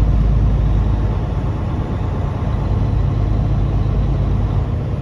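Truck engine running steadily with road noise, a low rumble that eases off about a second and a half in.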